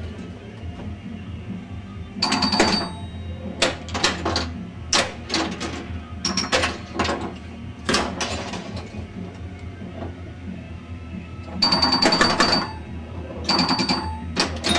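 1977 Bally Strikes and Spares pinball machine in play: irregular clacks and knocks of the flippers, bumpers and other playfield mechanisms. Short bursts of ringing tones from the machine come about two seconds in and twice near the end.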